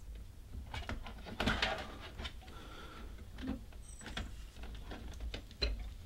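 Scattered soft clicks, taps and scrapes of a motherboard being eased into a metal PC case and settled over its standoffs, with a louder knock about one and a half seconds in and another near the end.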